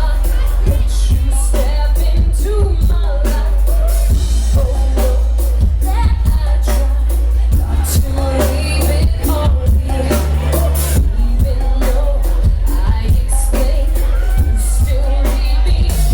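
Live pop song played loud through a club PA: a woman singing over a heavy, steady bass and a driving drum beat.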